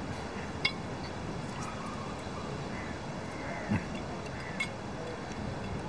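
A few light clinks of forks on plates over a steady background hiss.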